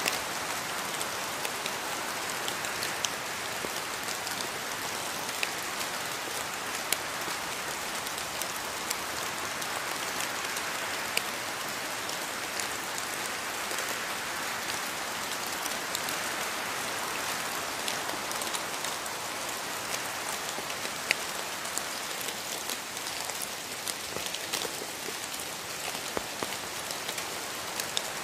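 Steady rain falling on foliage, a continuous hiss with scattered louder individual drops.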